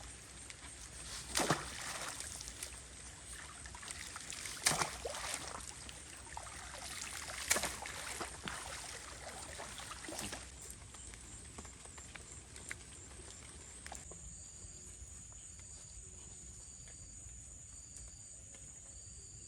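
Water splashing and trickling, with four sharp splashes about three seconds apart. Near the end it goes quieter, with a faint high chirp repeating about once a second.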